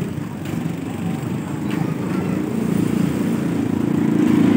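Small auto-rickshaw engine running close by with a steady low chug, getting louder toward the end.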